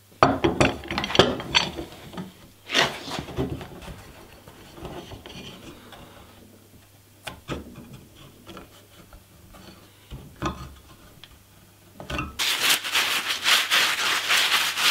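Wooden boards and metal G-clamps knocking and scraping as the clamps are set and tightened on a glued-up paddle blank, with scattered knocks after. From about twelve seconds in, a steady rubbing as glue is scrubbed off the hands with a wet wipe.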